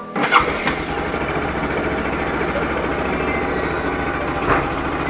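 Bajaj Pulsar RS200's single-cylinder engine starting at the first attempt after standing unused for over two months: it catches just after the start and settles into a steady idle. There is a brief louder burst about four and a half seconds in.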